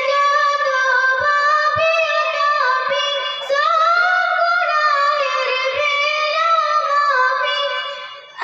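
A young singer's high voice singing a Bengali Islamic gazal unaccompanied. The voice holds two long, ornamented melodic phrases; the second begins about three and a half seconds in, and the voice fades just before the end.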